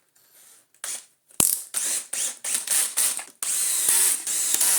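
Screwdriver doing up the screws of a Miele S5281 vacuum cleaner's plastic top casing: a run of short ratcheting bursts, then a longer one about three and a half seconds in.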